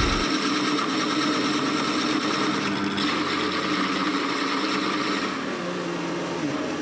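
Drill press motor running steadily with a constant hum while its cutter works a clamped steel part.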